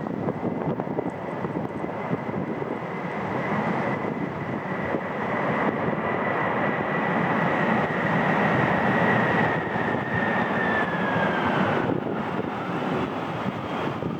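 Jet airliner passing by on landing, its engine noise swelling to a peak and a high engine whine holding steady before dropping in pitch near the end as it goes past.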